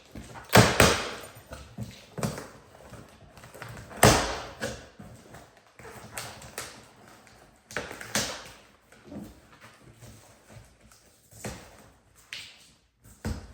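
Large cardboard shipping box being handled and shifted about: irregular knocks, thumps and scraping, loudest about half a second in and about four seconds in.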